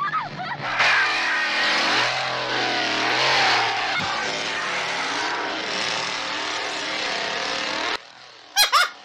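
Gasoline chainsaw running and revving, its pitch rising and falling, in a film's soundtrack; it cuts off abruptly about eight seconds in. A few short bursts of a woman's laughter follow near the end.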